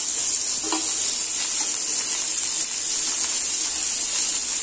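Chopped onions, green chillies and curry leaves sizzling in hot oil in a kadai, a steady hiss.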